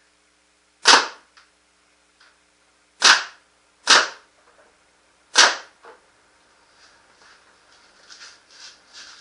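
Proto Matrix Rail 2011 paintball marker, fitted with a 360 QEV and running on high-pressure air, firing reballs: four sharp shots, the first about a second in, two close together at about three and four seconds, and the last about five and a half seconds in.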